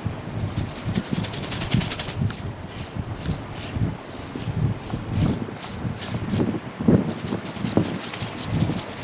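Servo-driven ornithopter flapping its wings: a high, buzzing rasp from the micro metal-gear servos and wings that runs steadily, breaks into short bursts in the middle, and runs steadily again near the end. Wind buffets the microphone with a low rumble throughout.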